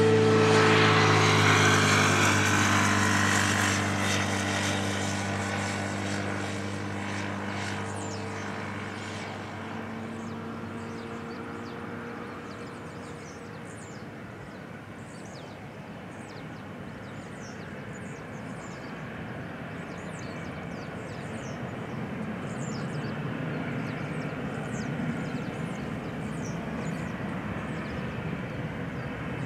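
An Airbus A330-200's Rolls-Royce Trent 700 turbofans at takeoff thrust as the airliner climbs away: loud jet engine noise with steady whining tones that fades over the first dozen seconds, leaving a distant low rumble that swells slightly again later.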